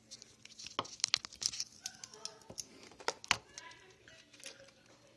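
Handling noise: a run of sharp clicks and rustles as a USB cable is handled and plugged into a laptop.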